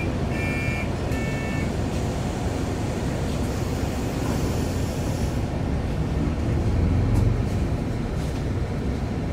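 Inside a moving city bus: a steady low rumble of engine and road noise, with a few short high beeps in the first couple of seconds. The rumble swells briefly about seven seconds in.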